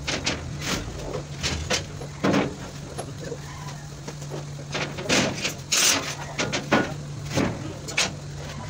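Irregular sharp knocks and clanks, a dozen or so spread unevenly, over a steady low hum.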